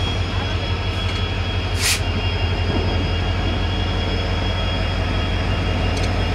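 Indian Railways diesel locomotive and train running alongside the platform: a steady low engine rumble with a constant high whine, and a short hiss about two seconds in.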